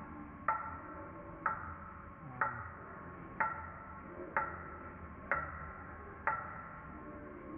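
Steady ticking: a sharp tick with a short ring almost exactly once a second, seven times, over a low steady hum.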